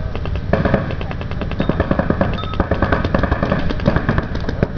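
Paintball markers firing rapid strings of shots, several at once so the pops overlap into a dense, fast rattle, picking up about half a second in.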